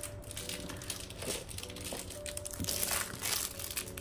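Rustling, scratchy handling noises close to the microphone, loudest a little over a second in and again near three seconds, over soft background music with long held notes.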